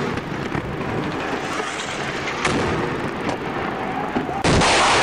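Battle sounds: a dense rumble of gunfire with several sharp shots, then a loud explosion about four and a half seconds in that dies away slowly.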